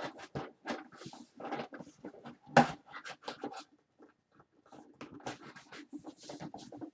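Cardboard being folded and pressed by hand: a run of short crinkles, creases and taps, with one louder knock about two and a half seconds in.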